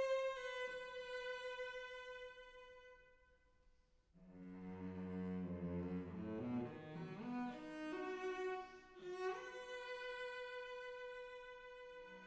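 Slow bowed-string music. A long held high note fades almost to silence about three seconds in, then lower string notes come in, sliding in pitch, before settling on a held note.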